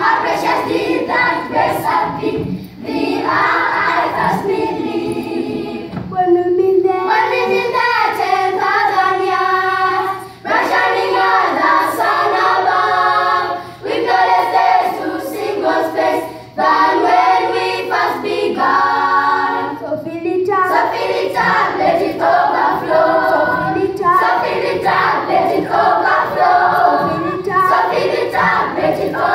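Children's choir singing a lively song in phrases with brief breaks between them, with sharp percussive hits scattered through.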